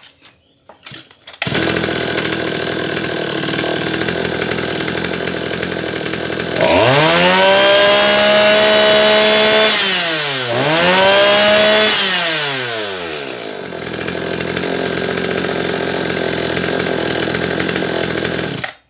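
Maruyama MB2620 26cc two-stroke brush cutter engine, which comes in suddenly about a second and a half in, idling steadily. It is then revved to full throttle twice, each time rising sharply, held high and falling back, before it returns to a smooth idle. The sound cuts off abruptly near the end.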